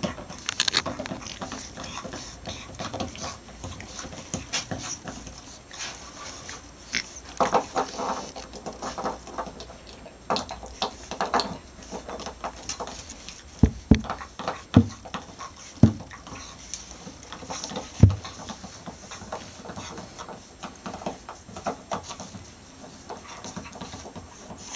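French bulldog puppies playing and gnawing a chew stick: scuffling and short grunts, with four sharp knocks in the middle that are the loudest sounds.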